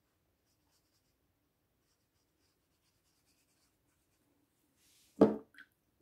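Faint scratching and dabbing of a fine watercolour brush on paper, then a single sharp knock about five seconds in, followed by a lighter knock.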